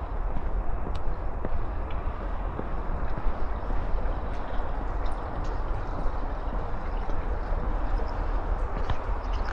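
A train running past at a level crossing: a steady rumble of wheels on rails with light clacks.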